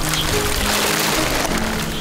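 Background music with slow, held notes that change about every half second.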